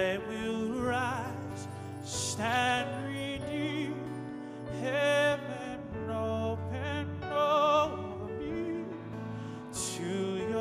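A man singing a slow worship song into a microphone, holding notes with a wide vibrato, over sustained instrumental chords.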